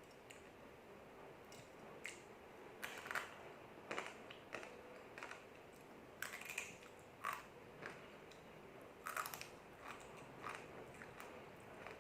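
Close-up crunching and chewing of crispy fried mie lidi noodle sticks, with irregular sharp crunches every half second to second or so.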